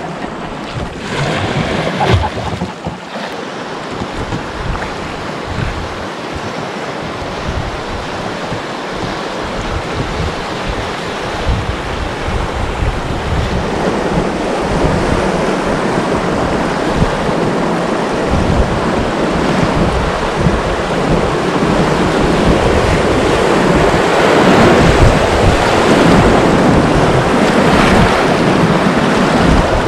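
River water rushing around a drift boat, steadily getting louder as the boat runs into a rapid, with wind buffeting the microphone.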